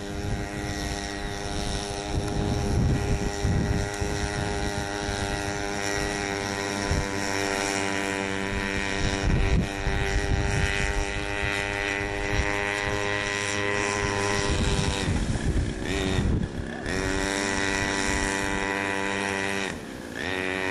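Small pocket-bike engine driving an RC speedboat through its gear drive, running at a steady high rev. About 15 seconds in the pitch falls as the throttle eases off, then picks back up, with another short drop near the end. Low, uneven wind rumble sits on the microphone beneath it.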